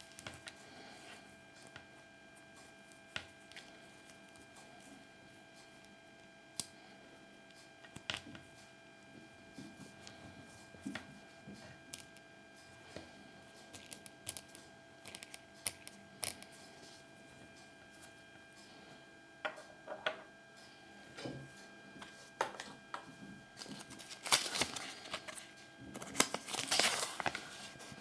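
Scattered light clicks and taps of small plastic toy pieces being handled, with a denser burst of crinkling about three-quarters of the way through, over a steady electrical hum.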